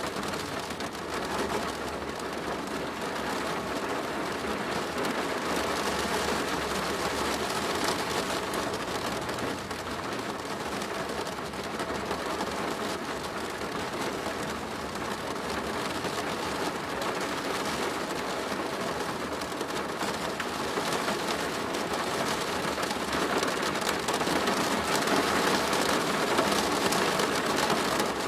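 Steady rain falling on a plastic roof, a dense, even hiss of drops with no breaks, growing a little louder in the last few seconds.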